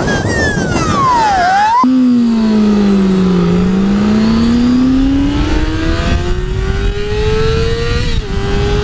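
A 2008 Kawasaki Ninja ZX6R's inline-four engine revving over wind rush. Its pitch drops and then climbs again. After a sudden break about two seconds in, the engine pulls steadily higher in pitch for several seconds under acceleration.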